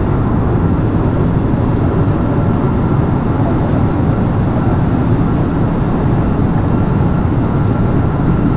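Steady airliner cabin noise: an even, unbroken rushing drone, heaviest in the low end, with a faint steady tone above it.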